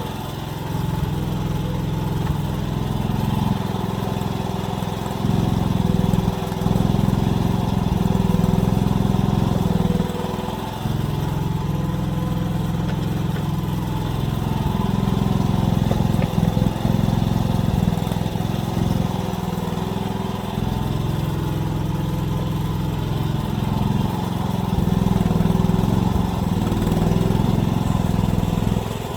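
AGT mini excavator's small engine running steadily, swelling louder several times and easing back in between as the hydraulics take load.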